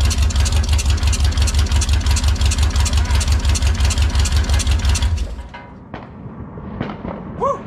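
Mopar 440 big-block V8 running on a makeshift stand through open headers with a steady, even pulsing beat, on a test run to see whether it runs, then shut off about five seconds in. A few faint clicks and a short squeak follow.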